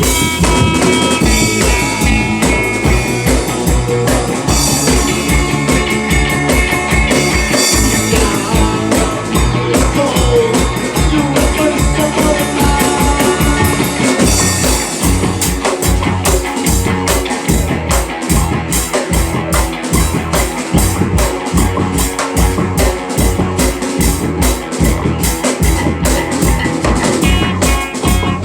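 A rock band playing: electric guitar over a steady drum-kit beat, loud and continuous.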